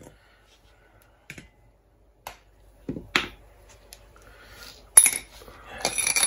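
Copper pipe and tools being handled on a hard floor: a few light ticks, two knocks around three seconds in and a sharp clack about five seconds in. Near the end comes a scraping, rubbing sound as the copper pipe is worked against the white plastic conduit.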